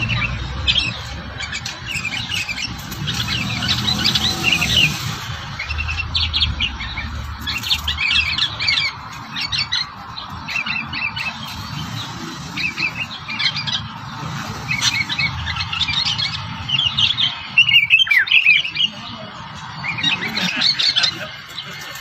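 Small songbirds chirping and twittering in quick runs of short high notes that come in bursts, with a sharper falling call about three quarters of the way through.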